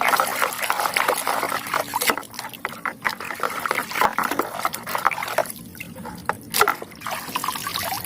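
Water splashing and trickling as a toy rifle is washed by hand, with irregular sloshes and small clicks.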